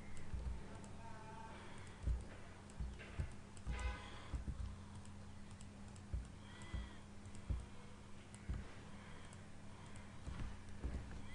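Computer keyboard keys and mouse buttons clicking in irregular taps over a steady low hum.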